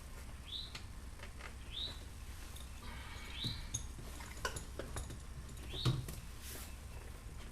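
A bird chirping, short rising chirps every second or two, over scattered clicks and knocks from hands and tools working inside a car door panel, the loudest knock about six seconds in.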